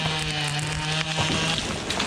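Husqvarna 572 XPG two-stroke chainsaw running at high revs with a steady note, which drops away about one and a half seconds in as the throttle is released. The saw is fairly new and not yet run in, so its note is somewhat unusual.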